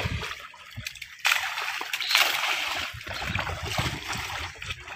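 Pond fish splashing at the water surface as they snatch thrown feed, in sudden bursts that start about a second in and are loudest for the next two seconds.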